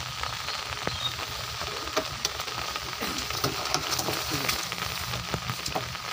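Steady rain falling on open water and broad leaves: an even hiss thick with small, scattered drop ticks.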